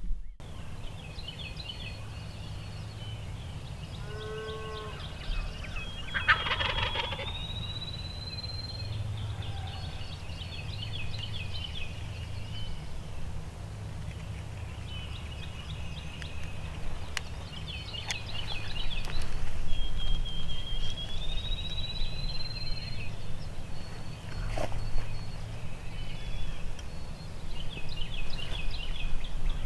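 A wild turkey gobbles once, a loud rattling call about six seconds in. Small songbirds chatter and whistle on and off throughout, over a steady low rumble of wind.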